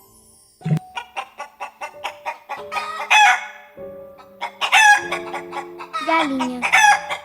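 Chickens clucking in quick runs of short calls, broken by louder drawn-out calls about three, five and seven seconds in. Background music with held chords comes in about four seconds in.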